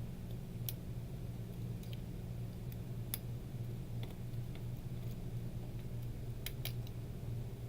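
Scattered small sharp clicks of ribbon-cable connector latches being flipped open and flex cables unplugged inside a Samsung SM-T230NU tablet, over a steady low hum.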